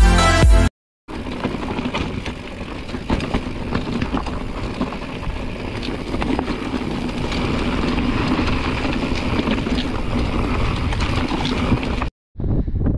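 Mountain bike riding over rough, rocky trail: steady tyre noise with frequent rattles and knocks from the bike.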